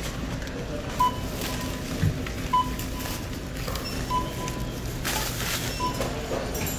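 Self-checkout station beeping: about four short, single-pitched beeps, one every second and a half or so, over the steady hum of the store. A soft thump sounds about two seconds in.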